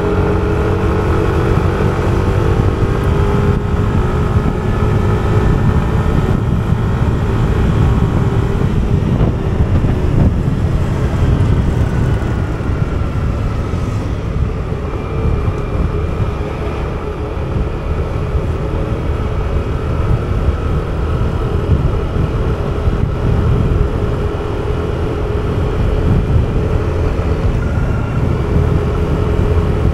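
Yamaha motor scooter's engine running at cruising speed, heard under a steady low rush of wind on the microphone. The engine hum is clearest at first, fades behind the wind noise through the middle and comes back near the end.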